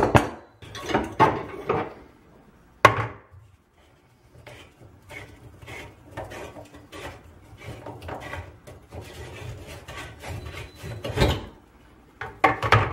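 Hand tool knocking, clinking and scraping against the drain fittings under a bathroom sink while a nut is loosened, inside a wooden vanity cabinet. Sharp knocks near the start, about three seconds in and near the end, with lighter rattling and rubbing between.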